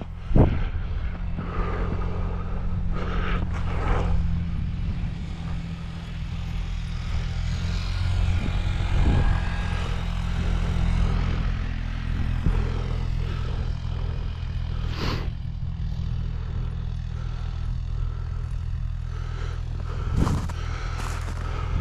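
An engine running steadily with a low, even hum, with a few brief knocks over it.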